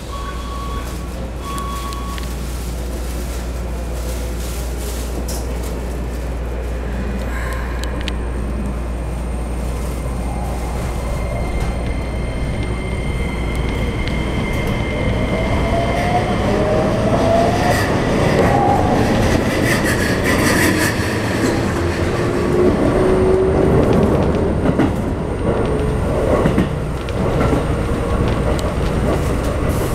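Keikyu New 1000 series train's Toyo IGBT-VVVF inverter and traction motors whining as the train accelerates away from a stop, heard from inside the car. The whine rises in pitch in several steps, over a steady low hum and wheel-on-rail noise that grows louder with speed.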